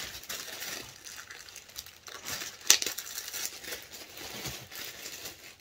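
Clear plastic bag crinkling and rustling as hands work it open, with one sharper crackle nearly three seconds in.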